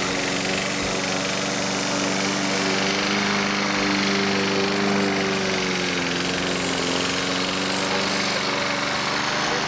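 Gasoline walk-behind lawn mower engine running steadily, its pitch sagging slightly a little past halfway as it takes load.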